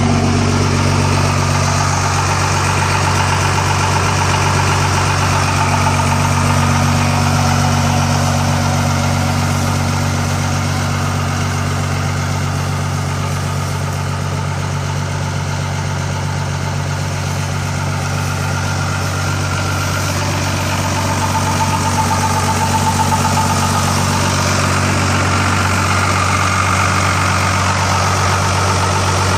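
1991 Dodge W250's intercooled Cummins 5.9-litre inline-six turbo diesel idling steadily, exhausting through a 5-inch stack.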